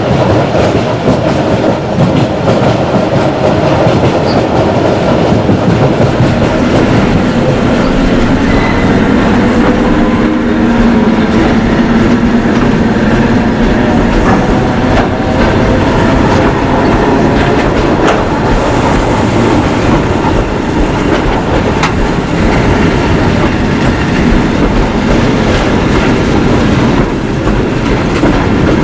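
Russian electric commuter train (elektrichka) running, a loud steady rumble of the carriage on the rails, with a faint whine shifting in pitch in the middle and a brief high squeal about two-thirds of the way in.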